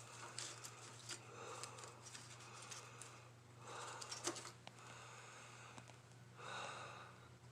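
A person breathing close to the microphone: soft breaths a couple of seconds apart, with a few faint clicks, over a steady low hum.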